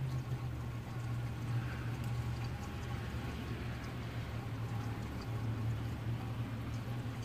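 Steady rain falling, with a few faint drop ticks, over a steady low hum.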